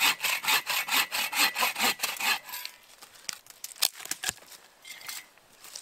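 Hand saw cutting through a fallen log in quick, even back-and-forth strokes, about four or five a second. The sawing stops about two and a half seconds in and is followed by a few sharp clicks.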